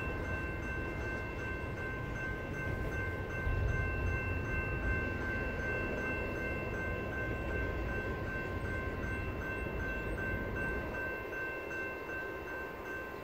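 Railroad grade-crossing warning bell ringing steadily, with a low rumble underneath that swells a few seconds in and eases near the end.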